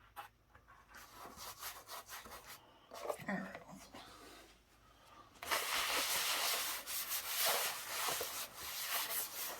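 Rapid, continuous scrubbing with an abrasive against a hard part, cleaning it, starting about halfway through and loud to the end.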